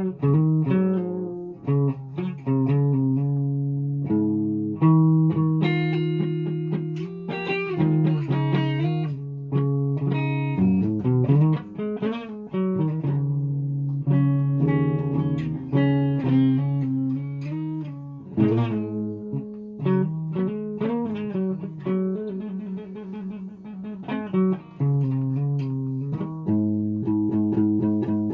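A guitar being played: a steady run of plucked notes and chords, each ringing and dying away.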